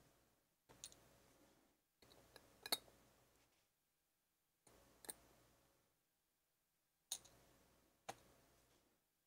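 Faint, sharp metallic clicks of tweezers and small lock parts being handled on a workbench, about six in all, the loudest nearly three seconds in.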